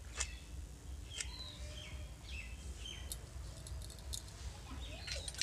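Small birds chirping in short, scattered calls, with a couple of sharp clicks over a steady low background rumble.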